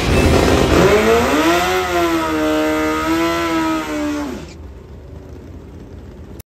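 Drag-racing motorcycle engine revving up and held at high revs with a slight waver during a burnout, then dropping off about four seconds in, after which the sound is much quieter.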